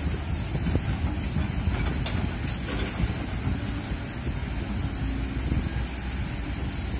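Kobelco crawler excavator's diesel engine running steadily as the machine works its boom and bucket in loose soil, with wind rumbling on the microphone.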